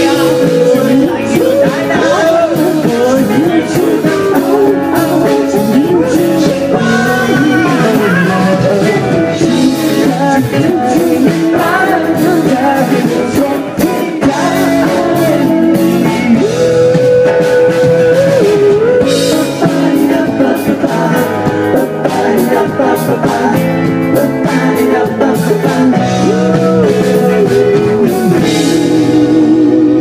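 Live band playing a pop-rock song: sung lead vocals over acoustic guitar, keyboard and drums.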